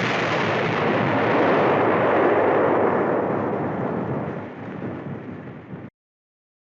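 Long, rumbling tail of a vintage TV-and-cartoon explosion sound effect. It swells slightly about two seconds in, then fades and cuts off abruptly about six seconds in.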